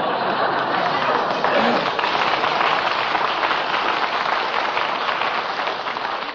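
Studio audience applauding after a punchline, a steady dense clatter of clapping that eases slightly near the end, heard on a 1949 radio show recording.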